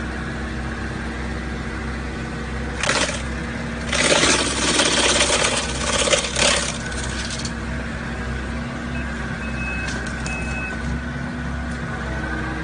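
Excavator-mounted wood chipper running over a steady diesel engine drone, with loud ragged crunching bursts from about three to six and a half seconds in as it chips wood. Two short high beeps sound near the end.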